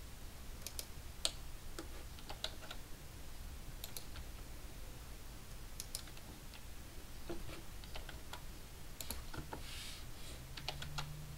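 Computer keyboard keystrokes and mouse clicks, irregular and sparse, about one or two a second, over a steady low hum.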